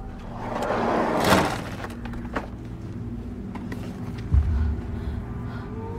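Trailer sound design: a rising whoosh swells to a sharp hit about a second in, then a low steady drone with a single deep thud about four seconds in.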